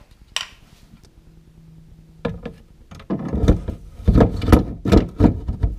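Plastic tailgate handle knocking and clattering against the hollow aluminium tailgate of a 2017 Ford F-150 as it is worked into its opening. The fast run of knocks starts about two seconds in, after a quiet start.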